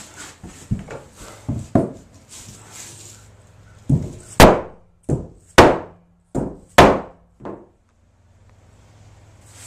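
Mallet striking clamped maple boards during a table-top glue-up: a run of lighter knocks, then about seven hard blows a little over half a second apart, about four seconds in.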